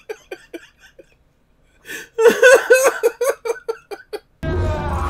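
A man laughing hard in quick rhythmic bursts: one bout trails off, and after a pause of about a second a second bout comes. Near the end a sudden steady sound cuts in.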